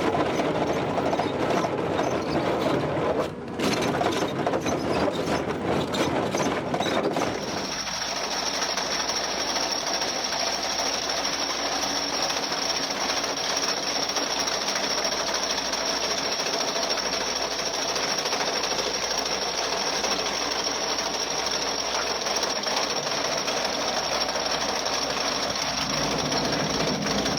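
Excavator-mounted chain cutter grinding through rock, a steady rough mechanical grinding. About seven seconds in the sound changes to a smoother grind with a thin high whine over it, which stops near the end.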